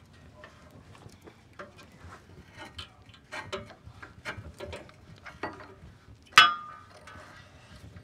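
Metal clicks, knocks and rattles from the sawmill's steel bed and log clamp as the log is set and clamped down, with one loud ringing metal clang about six seconds in.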